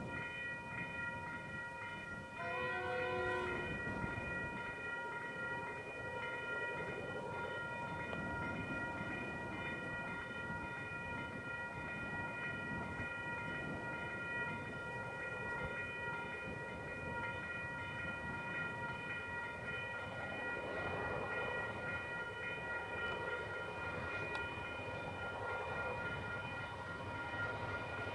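Distant diesel locomotives running with a steady low rumble and a constant high whine, growing fuller in the last several seconds as they come nearer. A short horn blast sounds about two seconds in.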